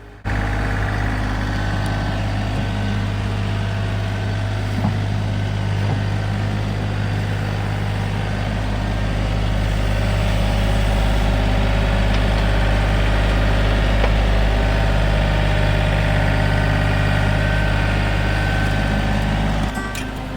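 A large engine running at a steady speed with a deep hum. It grows slightly louder about halfway through and cuts off just before the end.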